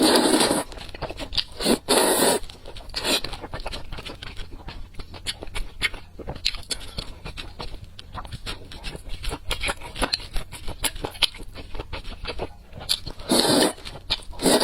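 Close-up eating sounds: food being chewed and crunched in many quick clicks and crackles, with three louder rustling bursts at the start, about two seconds in, and near the end.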